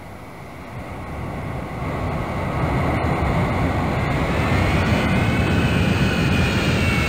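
Jet aircraft flying past, its engine noise swelling over the first few seconds into a steady rumble. A high turbine whine comes in about halfway through, rises slightly, then starts to drop in pitch as the aircraft passes.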